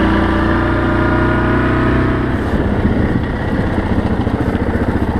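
Yamaha Grizzly 700 ATV's single-cylinder four-stroke engine running as it rides along. Its note climbs gently for the first couple of seconds, then drops to a lower, pulsing beat.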